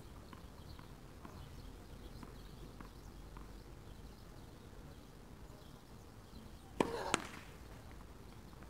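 Tennis ball struck with a racquet: two sharp cracks about a third of a second apart, about seven seconds in, the loudest sound. Faint scattered ticks of court sounds come before them.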